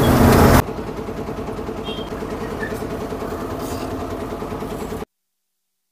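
Truck's diesel engine idling in the cab, a steady, evenly pulsing run after a louder passage cuts off just over half a second in. The sound stops dead about five seconds in.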